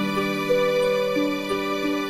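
Slow instrumental background music with long held notes that change every half second or so.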